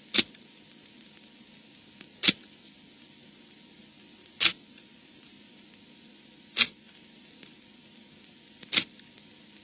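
Five short, sharp clicks, evenly spaced about two seconds apart, over a faint steady hiss.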